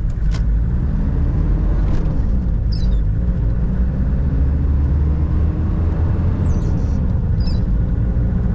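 Toyota 5L 3.0-litre naturally aspirated four-cylinder diesel in a 1997 Hilux, heard from inside the cab under full acceleration from a standstill. The engine note climbs and drops back twice as the gears are changed.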